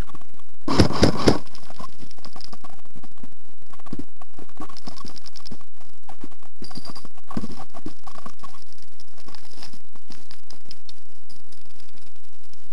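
Three quick sharp cracks about a second in, a short burst of airsoft gun shots. After them come scattered footsteps on gravel and tarmac while the player moves with the rifle.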